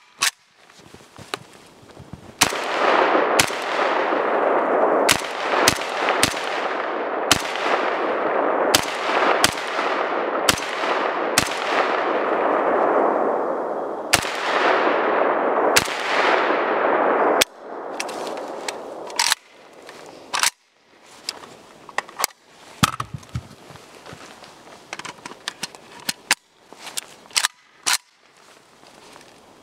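WASR-10 AK-47-pattern rifle in 7.62x39 firing single semi-automatic shots about a second apart, each trailing off in a long echo. Later the shots are quieter and come faster, in a quick string near the end.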